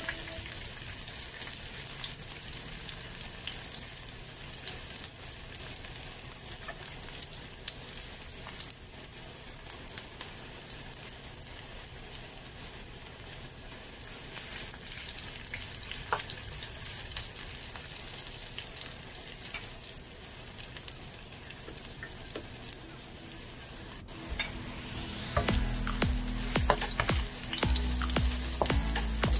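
Chopped garlic sizzling and crackling in hot oil in a wok, stirred with a wooden spoon. A low steady hum joins and the sound gets louder about 25 seconds in.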